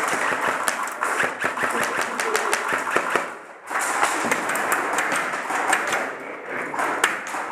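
Airsoft guns firing in rapid full-auto bursts, a dense clatter of shots and BB impacts, with a short break about three and a half seconds in.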